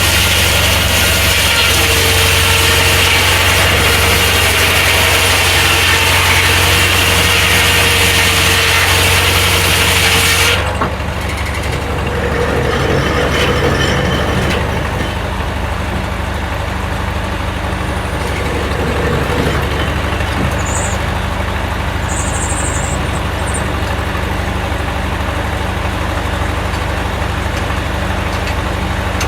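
Corley circular sawmill cutting through a log, a loud steady hiss over the engine drone. About ten seconds in the cut ends abruptly and the mill's engine and free-running blade carry on steadily.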